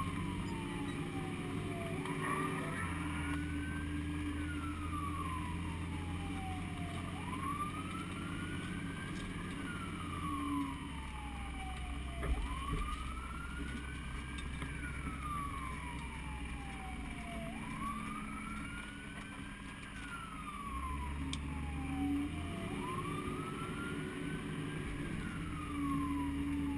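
Fire engine siren in wail mode, each cycle rising quickly and falling slowly, repeating about every five seconds, over the steady low drone of the truck's engine.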